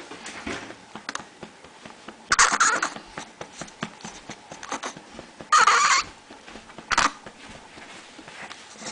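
A young baby making three short fussing, grunting vocal sounds, about two and a half, five and a half and seven seconds in, while being held up to be burped, with faint light pats in between.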